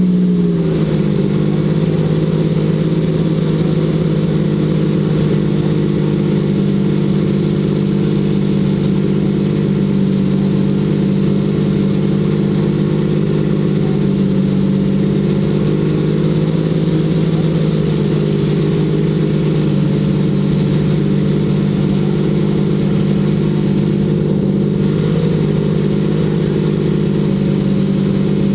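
Lamborghini Miura SVR's V12 engine idling; its revs fall back just after the start, then it holds a steady idle.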